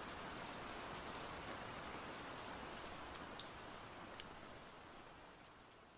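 Steady rain falling, with a few louder single drops, fading out near the end.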